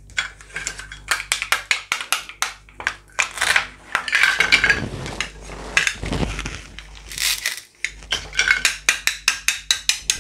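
Hard plastic toy fruit and vegetable pieces clicking and clattering as they are handled, knocked together and set down, in quick runs of sharp taps with a few short scrapes.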